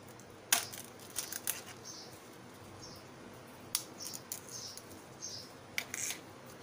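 A crisp masala khakhra (thin roasted flatbread) cracking and crackling as it is snapped by hand, its brittleness showing how crisp it is: a sharp snap about half a second in, then crackling bursts around one second, near four seconds and near six. Faint high chirps repeat about once a second in the background.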